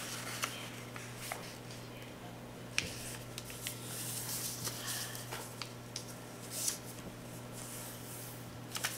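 A sheet of printed paper being folded and creased by hand: soft rustles and scattered short crinkles and taps as the folds are pressed flat, over a steady low hum.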